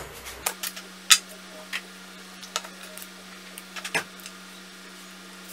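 Scattered clicks and light knocks as cylindrical lithium-ion cells, the opened plastic laptop battery case and a multimeter are handled and set down on a wooden board, the loudest knock about a second in and a cluster near four seconds. A steady low hum runs underneath from about half a second in.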